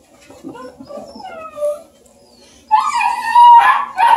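Bluetick coonhound puppies whimpering softly, then one gives a loud, long whining howl that starts about three seconds in.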